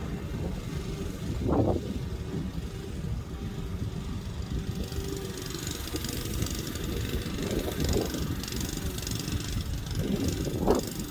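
Lawn mower engine running steadily, with a few brief louder surges.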